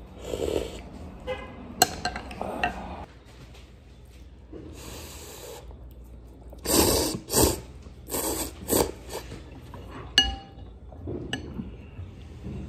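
Ramen noodles being slurped in several short noisy bursts around the middle, with chopsticks and a ceramic soup spoon clinking against the ceramic bowl a few times.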